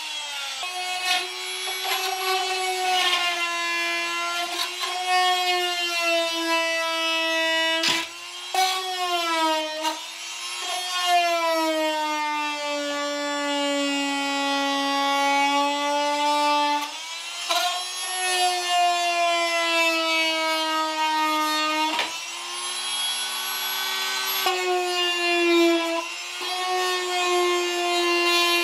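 Oscillating multi-tool buzzing with a steady whine as its scraper blade strips old sound-deadening pads off a car's steel floor pan. The pitch sags as the blade bites in and recovers as it eases off, and the tool cuts out briefly twice.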